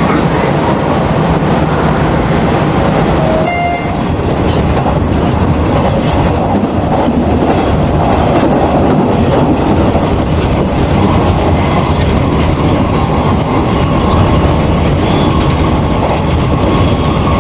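Hanshin electric train running on the line, heard from inside the car: a steady, loud running noise of wheels on track, with a short dip about three and a half seconds in.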